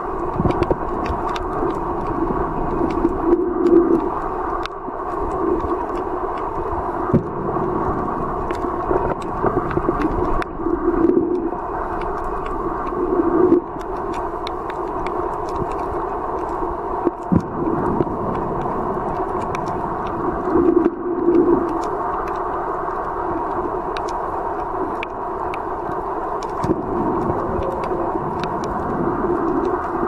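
Muffled underwater noise picked up through a camera's waterproof housing: a steady dull rush of moving water with a few louder swells, and many short sharp clicks scattered throughout.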